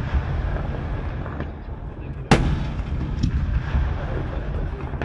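Fireworks display: a shell bursting with one loud, sharp bang a little over two seconds in, with several fainter pops around it, over a steady low rumble.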